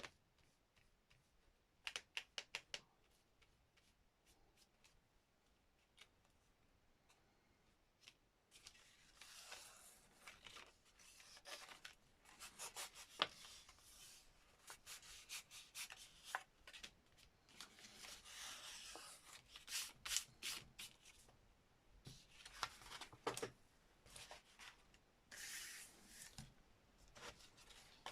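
Hands rubbing and scraping over paper, in irregular strokes, with a quick run of clicks about two seconds in.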